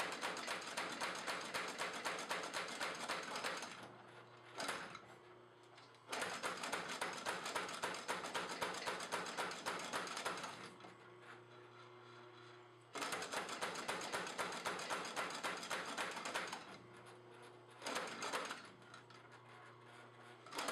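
Homemade wooden beam power hammer running in three bursts of rapid blows, a few seconds each. Between bursts only the electric motor's steady hum is left.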